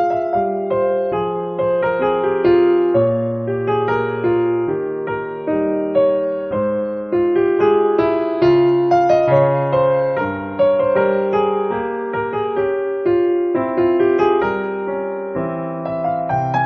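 Background music on an electric piano: a gentle melody over chords, with notes changing about once or twice a second.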